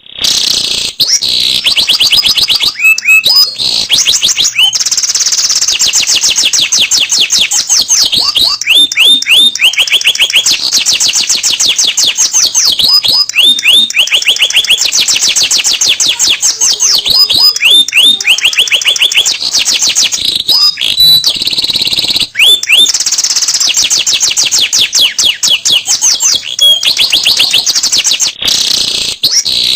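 Domestic canary singing a long unbroken song of rapid high-pitched trills and rolls, switching to a new repeated-note phrase every second or two.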